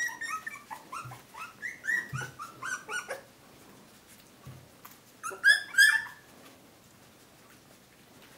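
Newborn puppies squeaking and whimpering: a quick run of short high squeaks over the first three seconds, then two loud cries about five and a half seconds in, with a few soft low thumps among them.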